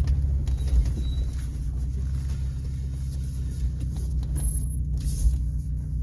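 1997 Mitsubishi Montero SR's V6 engine running at low speed, a steady low drone, with a couple of brief knocks about a second in and about five seconds in.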